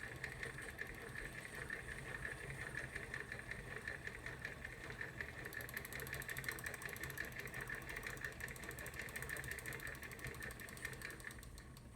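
Hand crank turning the balance wheel of a 1917 Singer Model 28 sewing machine, with the clutch released, to drive the bobbin winder as it winds thread onto a bobbin. A steady, smooth whirring with fine rapid ticking that winds down and stops near the end.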